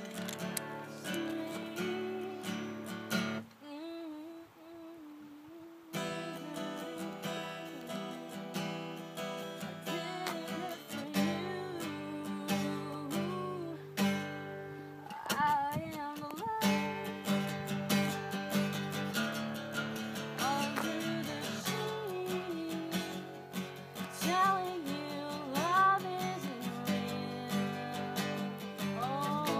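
Acoustic guitar being played, with a voice singing along in wavering, bending notes. The guitar drops out for a couple of seconds about four seconds in, leaving the voice nearly alone.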